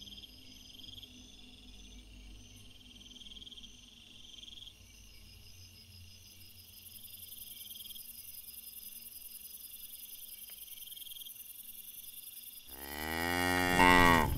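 Crickets chirping in a steady, pulsing night ambience. Near the end a loud, deep animal bellow cuts in, lasting about a second and a half and bending in pitch.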